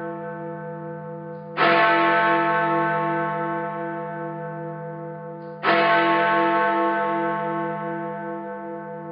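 A bell struck twice, about four seconds apart. Each stroke rings out with a pulsing hum and slowly fades. The ring of an earlier stroke is still dying away at the start.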